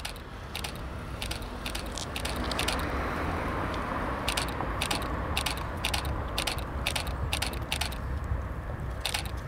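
Camera shutters firing over and over, about two or three clicks a second, in runs with a short pause partway through and a last pair near the end. Underneath, a car passing on the street swells and fades.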